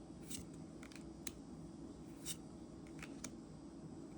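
Magic: The Gathering trading cards being handled and flipped through one at a time, giving about six short, faint flicks and swishes.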